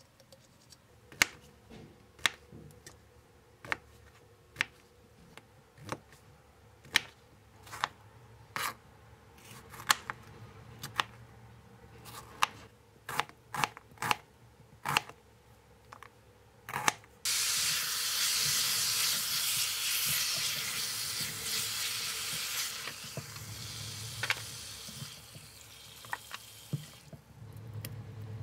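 Kitchen knife chopping a red onion on a plastic cutting board, one stroke about every second, coming closer together near the end. Then, with a sudden start, beef and onion slices sizzle loudly in a hot pot, easing off over the last few seconds.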